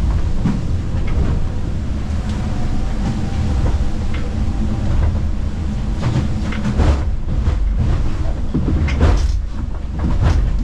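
Steady low rumble of an IMOCA 60 racing yacht's hull at speed through the sea, with several sharp bangs and crashes as the hull slams into waves, the loudest about seven and nine seconds in.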